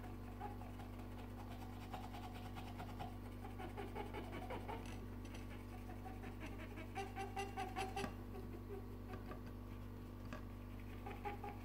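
Cotton bud scrubbing the button contact pads of a toy's circuit board, cleaning grime off them: faint, irregular scratchy rubbing in short spells over a steady low hum.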